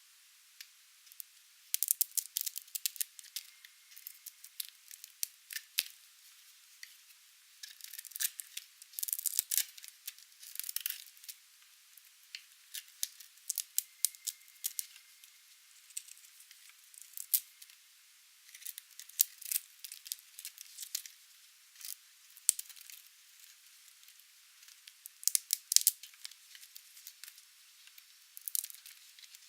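A blade cutting through dry, painted soap: crisp crackles and sharp clicks in irregular clusters with short pauses between cuts, thin and high with no low end.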